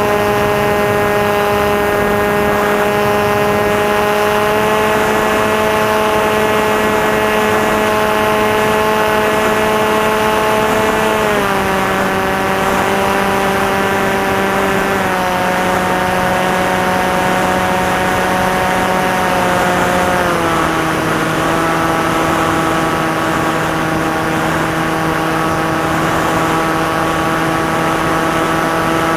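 Electric motor and propeller of a Maxi Swift FPV flying wing running in flight with a steady hum, stepping down in pitch three times as the throttle is reduced.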